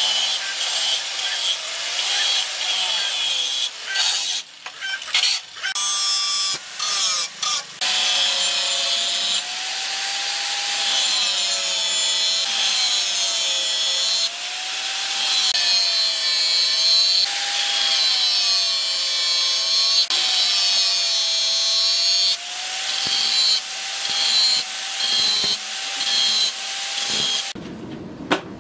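Electric angle grinder with a flap disc grinding a steel knife blank, its motor whine wavering up and down as the disc is pressed on and eased off. The grinding breaks off briefly several times, and near the end it gives way to a quieter low rumble.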